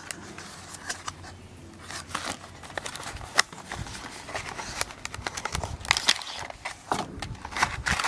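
A small cardboard box being opened by hand and a plastic clamshell package slid out and handled: irregular rustles, scrapes and sharp clicks.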